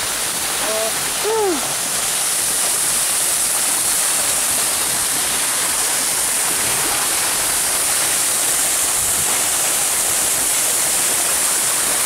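Narrow waterfall dropping off a rock face into a plunge pool: a steady rushing hiss of falling water. A short call from a voice cuts through about a second in.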